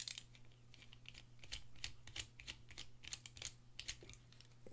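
Small bit screwdriver turning out a screw from a titanium knife handle: faint, quick clicks in short irregular runs.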